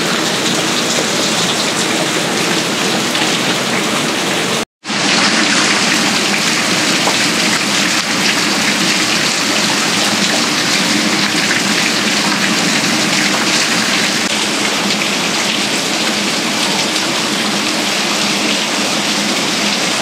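Heavy rain pouring down steadily on pavement and foliage, a dense, even hiss, with a split-second break about five seconds in.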